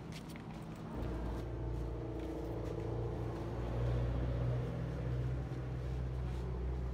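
Small motorcycle engine running at a steady idle, coming in about a second in, after a few light clicks and knocks.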